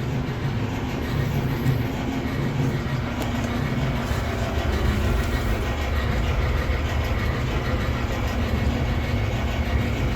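Samsung clothes dryer running with a loud, steady rumble from the turning drum. The technician traces the noise to flat spots on the drum support rollers.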